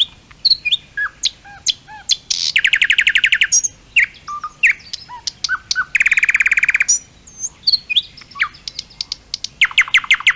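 Nightingale singing: a varied song of short whistles, slurred notes and clicks, broken twice by long, very fast runs of one repeated note, with another quick run near the end.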